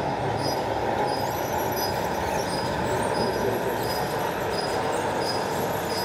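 Radio-controlled model construction machines running, a steady mechanical noise, with a short high beep repeating about three times every two seconds like a warning beeper.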